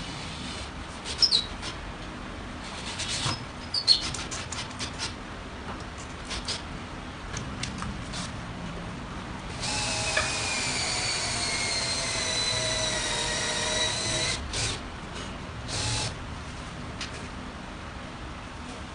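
Scattered knocks and clicks of handling, then about five seconds of a power drill running, its whine slowly dropping in pitch, followed by a few more knocks.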